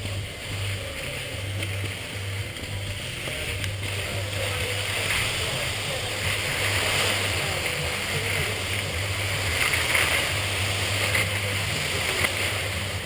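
Skis sliding and scraping over packed snow: a steady rushing hiss that grows louder from about four seconds in, over a low rumble.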